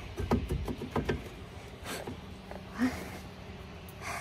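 Metal suspension parts being handled and fitted: a quick run of knocks and clicks in the first second or so, then a few scattered knocks and a soft thud.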